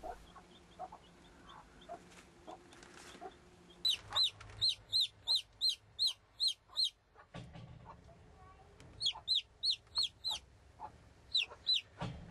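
A young chick peeping in quick runs of high, falling cheeps, about three a second, with pauses between the runs. Soft low clucks from the Wyandotte mother hen come in the first few seconds.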